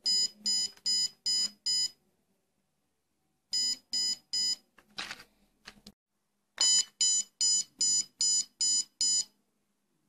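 Arduino alarm's piezo buzzer beeping in short, evenly spaced pulses, about two and a half a second, in three runs of five, three and seven beeps. The alarm is going off as its sensors detect a flame and motion. A brief noise about five seconds in.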